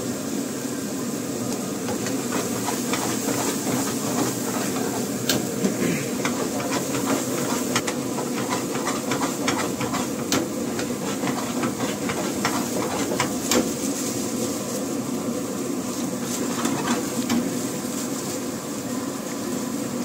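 Commercial gas burner on a high flame hissing steadily under a pan of bubbling gravy, with scattered sharp clicks of a metal ladle against the pan through the middle.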